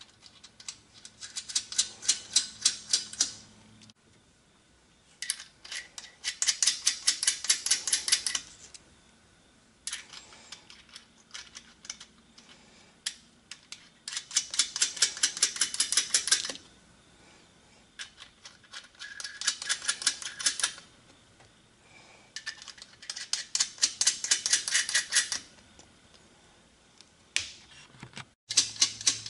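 Hand ratchet clicking in quick runs of a few seconds each, about six times with pauses between, as nuts are run down onto the studs that hold a 6-71 blower to its intake manifold.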